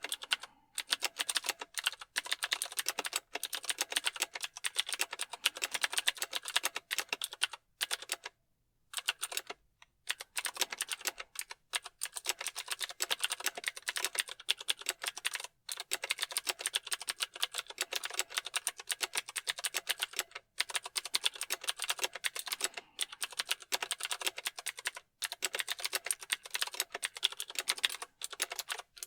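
Continuous fast typing on a mechanical keyboard: a dense run of key clicks, with a short pause about eight seconds in.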